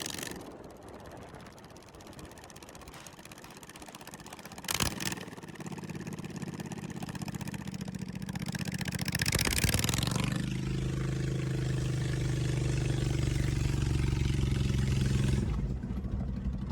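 Lawn mower engine driving a pickup truck: a sharp knock about five seconds in, then the engine comes in, revs up near ten seconds and holds a steady pitch before easing off shortly before the end.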